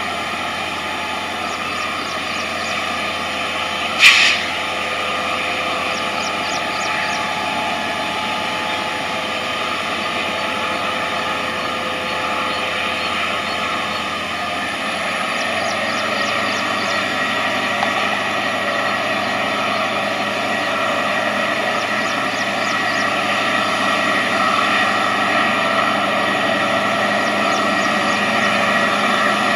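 EMD WDP4 diesel locomotive's 16-cylinder two-stroke engine running as it approaches, a steady whining hum that grows louder toward the end. A single sharp crack about four seconds in is the loudest sound.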